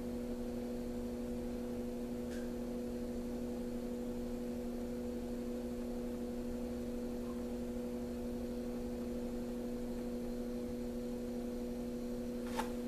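Steady low electrical mains hum with a few even overtones, a faint click about two seconds in and another near the end.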